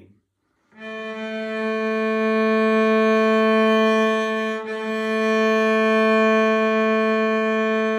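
Cello bowed on the open A string: one long, even note drawn through two full-length bow strokes, with a brief bow change about halfway through. It starts about a second in.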